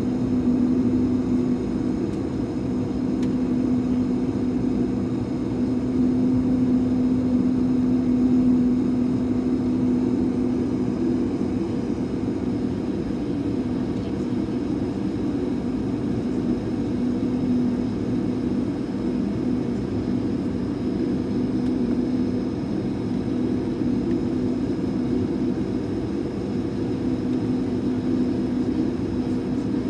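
Steady cabin drone of an Airbus A220-300 taxiing, its engines at idle, heard from inside the cabin: an even hum with a steady humming tone.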